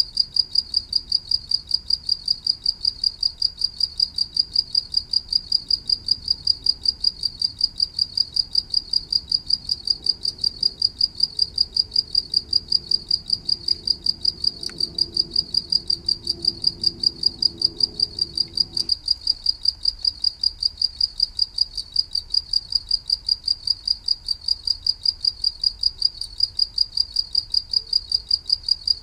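Cricket chirping steadily, a high-pitched rapid run of even, repeating chirps.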